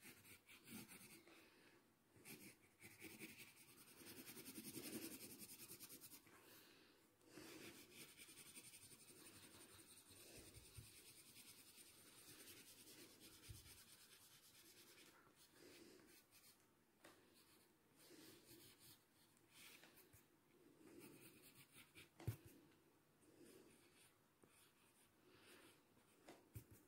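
Faint scratching of a graphite pencil on drawing paper, in uneven shading strokes. One sharp tap near the end.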